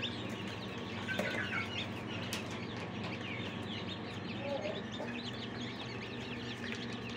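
A crate of newly hatched chicks, Brahma chicks among them, peeping continuously: many short, high chirps overlapping, growing busier in the second half, over a steady low hum.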